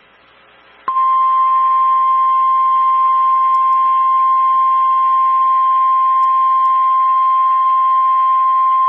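NOAA Weather Radio 1050 Hz warning alarm tone: one loud, steady single-pitch tone that starts about a second in and holds unbroken. It is the attention signal that comes before a new warning message is read.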